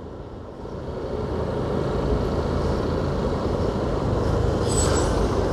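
Road and engine noise of driving in dense city traffic, a steady low rumble that grows louder over the first two seconds. A brief high-pitched squeak about five seconds in.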